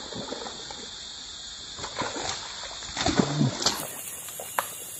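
Splashing in shallow swamp water as a hooked snakehead fish is fought and landed, the angler stepping into the water; the splashing is loudest about three seconds in, with a short voiced grunt among it.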